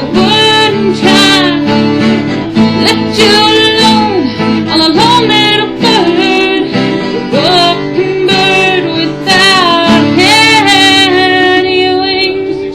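A song: a solo voice singing over guitar accompaniment.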